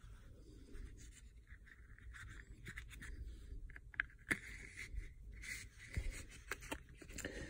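Faint scraping and a few light clicks from handling a freshly crimped 4-gauge cable and its terminal, with one sharper click about four seconds in.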